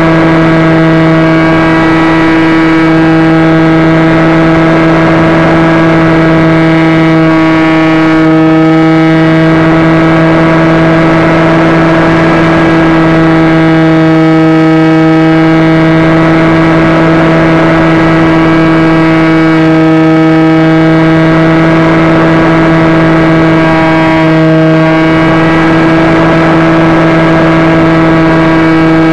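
Radio-controlled model airplane's motor and propeller running steadily at high throttle, heard loud and close from a camera on the plane. The pitch sags slightly a few times.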